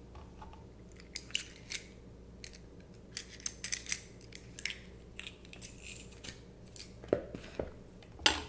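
Hand-held metal garlic press being loaded with a garlic clove and squeezed, giving scattered small clicks and scrapes of metal, with a few louder clicks about seven seconds in and near the end.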